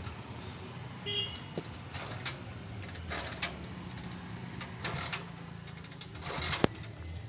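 Intermittent handling noises, a handful of short scrapes and rustles and one sharp click near the end, over a steady low rumble.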